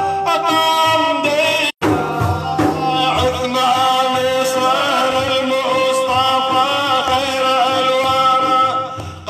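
Middle Eastern devotional music: a melody of long, ornamented notes. The sound cuts out completely for an instant about two seconds in.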